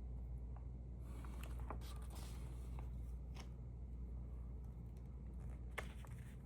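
Paper stamps and covers being handled and shuffled: soft rustling and sliding of paper for a couple of seconds, with a few light clicks and taps, over a steady low hum.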